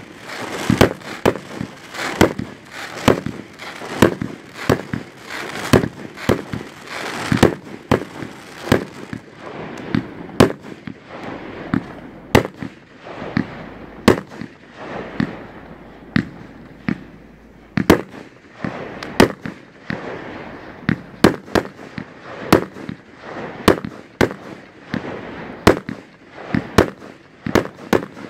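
Fireworks going off in quick succession, a sharp bang about every half second to second. A dense crackling hiss runs under the bangs for the first third, then thins out while the bangs continue.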